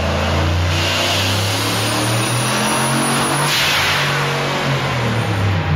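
Boosted SN95 Mustang 4.6 four-valve V8 running hard under load on a chassis dyno, revving, with a thin high whine partway through.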